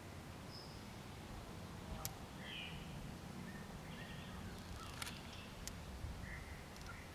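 Faint outdoor ambience with short bird calls and a few sharp clicks, two of them standing out about two and five seconds in.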